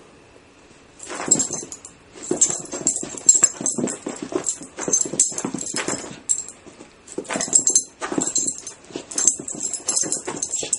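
A small dog making excited noises in many short, irregular bursts as it chases a laser-pointer dot, starting about a second in.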